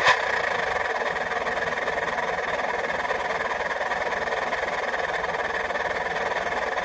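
Engine idling steadily through a branched aftermarket exhaust muffler, with a fast, even flutter. A short click comes right at the start.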